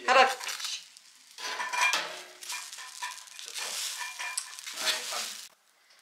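Metal spatula scraping and clinking across a hot steel stovetop plate, working loose pancake batter stuck to it, with frying sizzle. It comes in several bouts and stops abruptly about five and a half seconds in.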